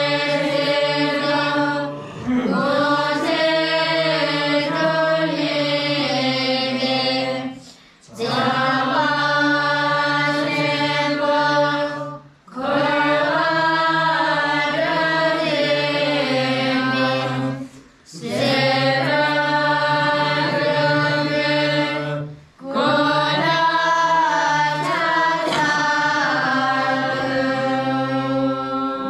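A group of voices chanting a Bon prayer in unison, in long sung phrases of about five seconds, each broken by a brief pause for breath.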